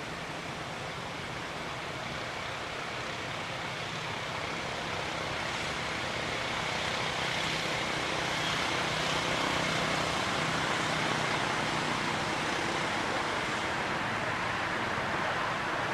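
Steady rushing background noise with a faint low hum, growing a little louder toward the middle.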